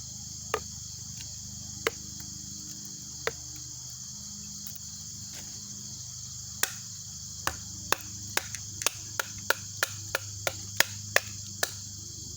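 A knife being worked into pine fat wood, making sharp wooden knocks. A few come singly early on, then from about halfway a quick run of them at roughly three a second. Crickets chirp steadily behind.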